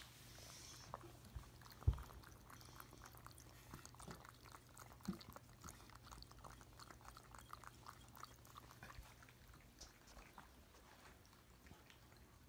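Cats lapping water from drinking glasses: a long run of faint, quick wet ticks, with a sharper knock about two seconds in.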